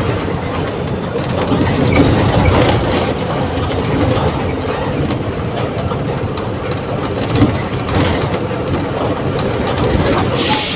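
Mercedes-Benz OF 1721 BlueTec 5 city bus with Marcopolo Torino body running under way, heard from inside the cabin: a steady engine drone with the body and fittings rattling. A burst of hiss comes near the end.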